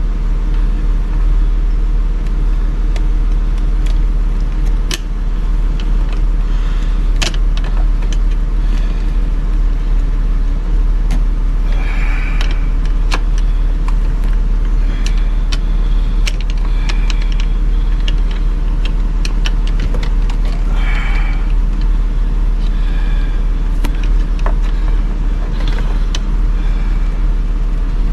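A steady low drone runs throughout, with scattered sharp clicks and short scrapes of tools and trim parts being handled while the parking brake switch is fitted in the console.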